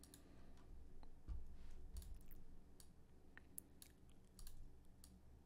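Faint, irregular clicks of a computer mouse and keyboard keys, about a dozen, spread unevenly.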